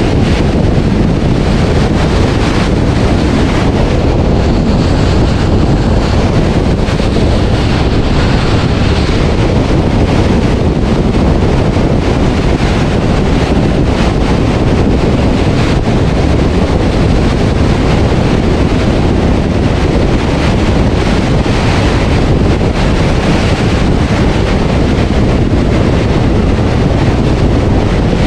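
Steady, loud rush of wind buffeting a GoPro HERO8's microphone on a vehicle travelling at highway speed, mixed with road noise.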